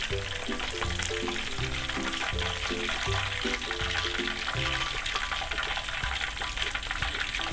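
Chicken wings sizzling as they deep-fry in hot oil, a continuous crackling hiss, with background music playing over it.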